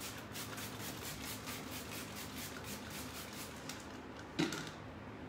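Plastic trigger spray bottle squirting rapidly onto the painted cabinet side, a quick even run of short hissing sprays at about seven a second. The spraying stops a little before a single knock near the end.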